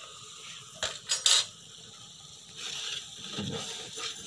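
Long metal ladle scraping and clinking against a large aluminium cooking pot as a curry is stirred, with a few sharp clinks about a second in.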